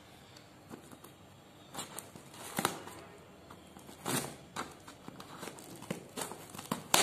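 A cardboard parcel being handled and opened by hand: scattered short rustling, scraping and crackling noises of the box and its packaging, a few of them louder.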